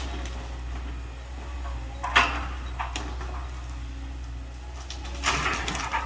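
Excavator's diesel engine running steadily at a distance, with two louder scraping crashes about two and five seconds in as it clears brush and trees.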